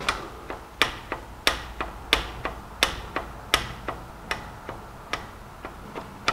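Sharp metallic clicks, about two to three a second at uneven spacing, from a rocker arm on a small-block Chevy V8 as it is worked by hand and clacks with free play in the valvetrain: a sign of a collapsed hydraulic lifter.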